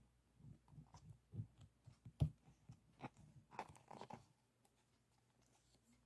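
Resin drills of a finished diamond painting being rubbed and scratched, giving faint, irregular crunchy clicks and scratches that stop about four seconds in.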